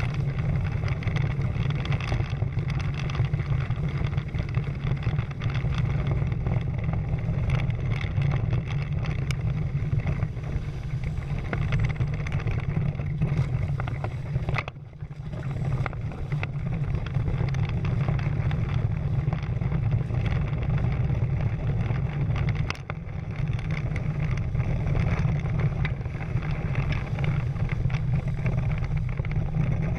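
Wind buffeting the camera microphone and water rushing and splashing past the hulls of a Prindle 16 catamaran sailing at speed. It is a steady, heavy rumble that drops briefly about halfway.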